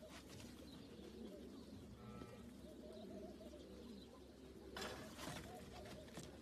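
Domestic pigeons cooing softly and continuously, a low wavering warble, with a brief rustle about five seconds in.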